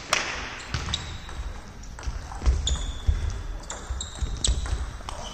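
Table tennis rally: the celluloid-type ball clicking sharply off the bats and table, a hit every half second to a second, with low thumps and shuffles of the players' feet on the sports-hall floor between the strokes.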